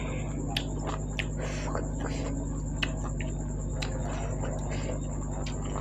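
A person chewing food close to the microphone: scattered small wet mouth clicks and smacks, over a steady low hum and a thin high whine.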